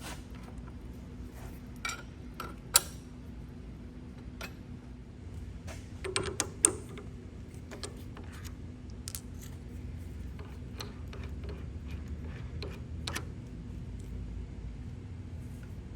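A manual milling machine running with a steady hum, while metal tools and the steel workpiece are handled, giving scattered sharp clinks and taps, the loudest about three seconds in and a quick cluster of them around six seconds.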